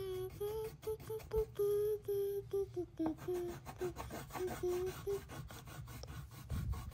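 A child humming a wordless tune in a string of short held notes, over the steady scratching of a coloured pencil shaded back and forth on paper.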